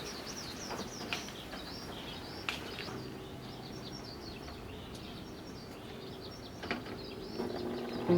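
Small birds chirping and twittering in quick, high calls, with a few light clicks from nearby handling now and then.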